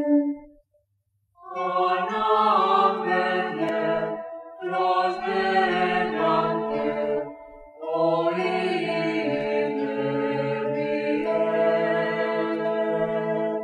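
Background music: a choir singing slow, sustained chant-like phrases, with short breaks between phrases.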